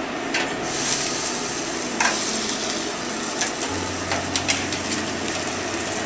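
Cream sauce with sautéed vegetables sizzling in a hot pan, with several short clinks of kitchenware.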